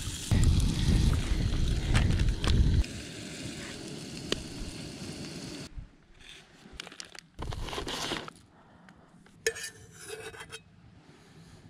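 Coral trout frying in a small camping pan on a gas canister stove: a steady sizzling hiss over a low rumble that cuts off about six seconds in. Then a fork scrapes and clinks against the metal pan a few times in short bursts.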